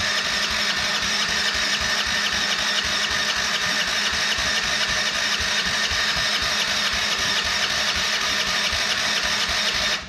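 Can-Am's engine running steadily with a fast even beat, cutting off suddenly at the end.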